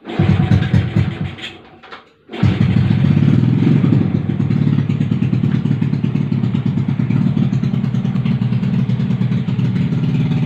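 Yamaha Vega R motorcycle's 150 cc single-cylinder four-stroke engine, fitted with an aftermarket krimpi exhaust, running with an even exhaust beat. It fades away briefly, then picks up again about two and a half seconds in and idles steadily.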